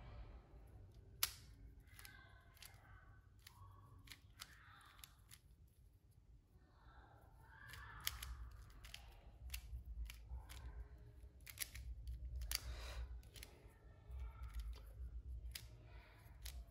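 Plastic 3x3 puzzle cube being turned by hand in quick, irregular moves: faint clicks and rasping of the layers sliding, with one sharper click about a second in.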